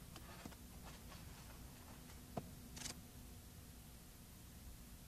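Near silence: a low steady hiss with a few faint clicks, the sharpest about two and a half seconds in, and a brief high hiss just before three seconds.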